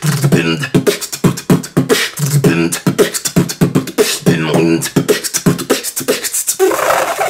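Human beatboxing: a fast, steady rhythm of mouth-made kick and snare sounds over hummed bass notes. About a second before the end it moves into one long held vocal note.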